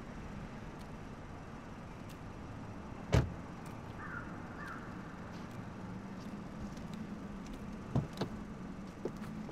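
A car door, a Mercedes-Benz C-Class sedan's, slammed shut once with a sharp thud about three seconds in, over a steady low background hum. A couple of lighter knocks follow near the end.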